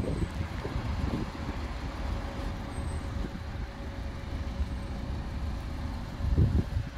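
Wind buffeting the microphone, a gusty low rumble that surges briefly near the end, with a faint steady hum underneath.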